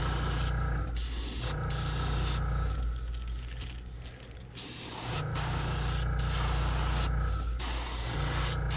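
Airbrush spraying paint onto crankbait lure bodies, a steady hiss broken by short pauses as the trigger is let off. The hiss eases for a second or two about four seconds in. A low hum runs underneath.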